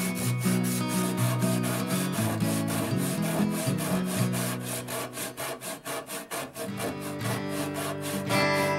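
Japanese ryoba pull saw ripping a board lengthwise, the blade rasping through the wood in quick, regular strokes.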